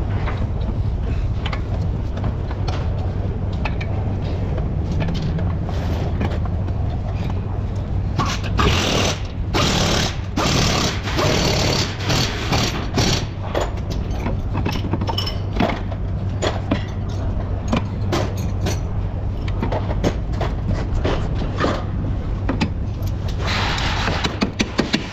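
Hand tools working on a car's front axle and suspension: irregular metal clicks and knocks, with stretches of rasping and scraping, over a steady low hum.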